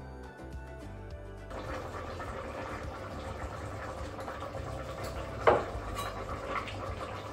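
Background music briefly, then the steady watery hiss and bubbling of a Crockpot Express pressure cooker's pot of broth and water heating toward the boil on sauté. A single sharp knock about five and a half seconds in.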